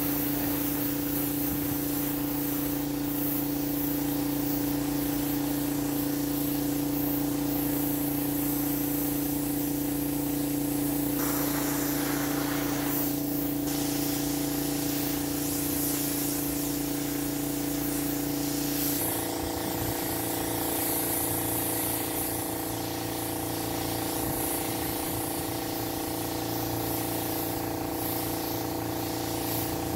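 Small air compressor running with a steady hum, under the hiss of a spray gun. The hiss grows louder for a couple of seconds about eleven seconds in, and the compressor's hum changes pitch about nineteen seconds in.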